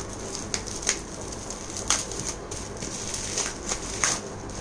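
Plastic bubble-wrap packaging crinkling and crackling as it is handled and pulled off a box, with irregular sharp crackles, the loudest about two and four seconds in.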